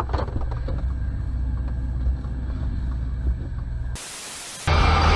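Steady low hum of the dashcam car's engine and road noise, with a few faint clicks near the start. About four seconds in, it cuts to a short burst of TV-static hiss, then a louder, fuller sound comes in suddenly just before the end.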